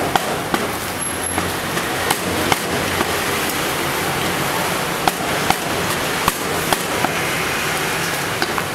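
Knife knocking on a cutting board in irregular sharp strikes, roughly one or two a second, as a turtle is cut up, over a steady background hum.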